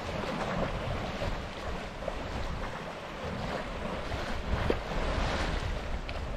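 Water rushing and splashing along the hull of a Beneteau First 40.7 sailboat under sail, with gusting wind buffeting the microphone.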